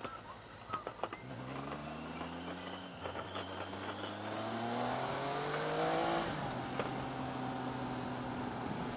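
Triumph Tiger 800's three-cylinder engine accelerating out of a hairpin. Its note rises, breaks about three seconds in as it shifts up, and climbs again until about six seconds in, then drops back to a steadier running note.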